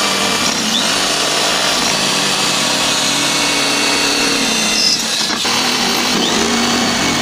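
Electric drill running steadily while drilling holes in a circuit board; its pitch wavers now and then, with a brief dip a little past five seconds in.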